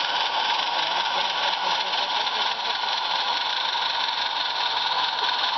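A live-steam 16mm-scale model locomotive hissing steadily with escaping steam, an even hiss with a faint steady whistle-like tone and no chuff rhythm.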